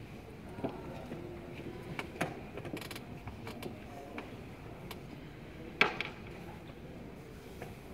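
Blitz chess play: wooden chess pieces set down on boards and chess clock buttons pressed, a string of sharp clicks and knocks with the loudest a little under six seconds in, over a steady low background noise.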